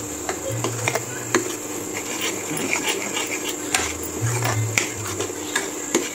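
A steel ladle scraping and knocking against an aluminium kadhai while stirring thick masala paste frying in oil, giving irregular clicks and scrapes over a steady hum.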